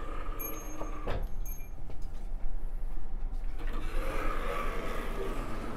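Inside a stopped express train carriage: a steady low rumble with a sharp click about a second in, then a rush of noise from about four seconds in as a hand pushes open the carriage's sliding door to the vestibule.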